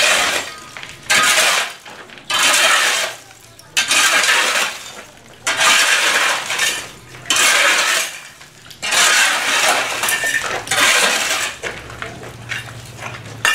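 Metal shovel scraping across a concrete floor and scooping broken rubble and plaster, in repeated strokes about one every second and a half, with chunks of debris clinking.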